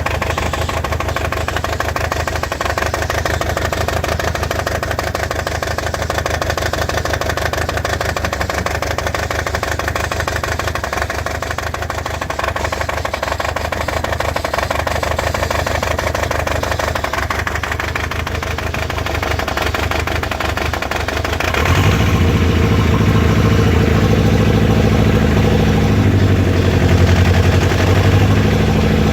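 Toyota 22R-TE turbocharged four-cylinder engine running with a misfire, its firing pulses steady. About 22 seconds in, the engine note gets louder and fuller in the low end and stays that way.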